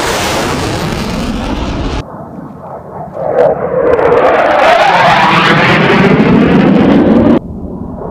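Military fighter jet flying low overhead: a loud jet roar with a sweeping, whooshing phasing as it passes. The sound changes abruptly about two seconds in and cuts down sharply near the end.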